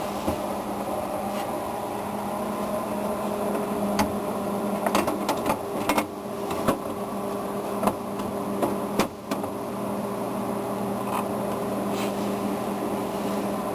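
Steady hum of a running PC's case fans, with a cluster of sharp clicks and knocks between about four and nine seconds in as the Antec 900's side panel is fitted back on.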